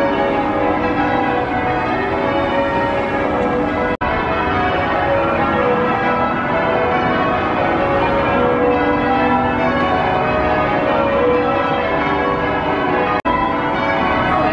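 Church bells rung in changes: a peal of many bells sounding continuously, one after another in shifting order. There are two brief breaks, about four seconds in and near the end.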